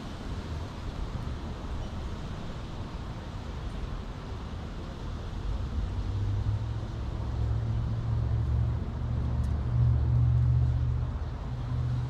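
Low rumble of road traffic. A vehicle's engine drone builds about halfway through, is loudest shortly before the end, then eases off.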